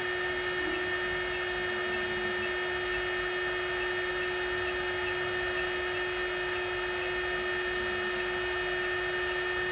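Shockwave therapy machine humming at idle: a steady fan-like whir with a constant pitched hum running through it.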